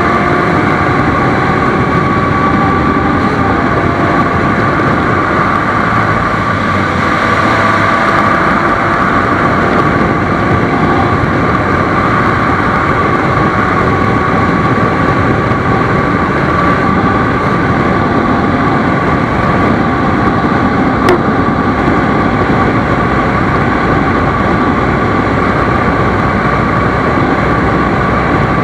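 Honda CB650F's inline-four engine running steadily as the motorcycle cruises, over a steady rushing noise.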